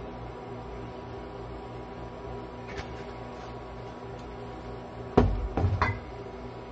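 Induction cooktop running with a steady hum and a faint high whine while it heats oil in a wok. A little over five seconds in comes a quick run of loud knocks and thuds, the loudest sound here.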